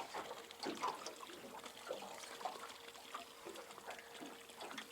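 Faint water trickling and lapping, with scattered small splashes and a faint steady hum underneath.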